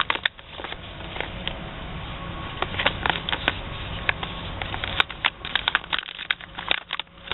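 Soft plastic squeeze pouches being handled, giving off irregular crinkling and small clicks.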